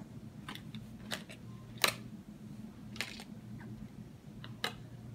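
Scattered light clicks and ticks from handling thin paper playing cards and tape, about half a dozen, the sharpest about two seconds in, over a steady low hum.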